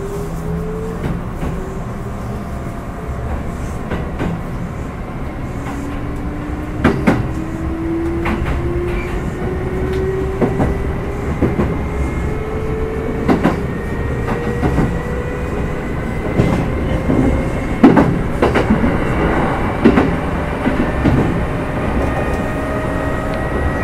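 Running sound of a Kintetsu 2610 series electric train's motor car: a traction-motor whine rising slowly in pitch as the train gathers speed, over a steady rumble, with sharp clacks of the wheels over rail joints.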